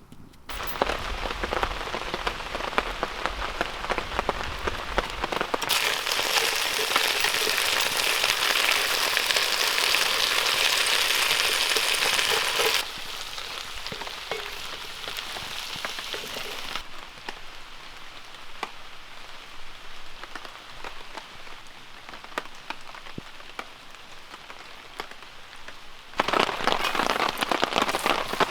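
Rain pattering steadily on a tarp, a dense hiss of many small drop ticks. Its loudness steps up and down abruptly several times, loudest in the middle stretch.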